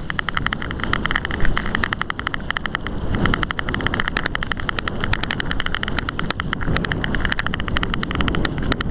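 Mountain bike rolling fast over a leaf-covered forest trail: rapid rattling clicks as the bike and camera jolt over the bumps, over a steady rushing of wind and tyres on dry leaves.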